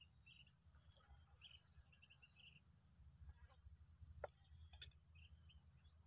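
Near silence at the shore: a faint low rumble, a few faint high chirps in the first half, and two small clicks a little past the middle.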